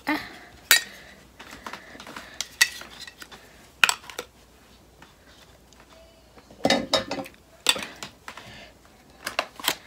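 Small cosmetic bottles, jars and tubes knocking and clinking against each other as they are gathered up by hand, in scattered sharp clicks with a quieter stretch around the middle.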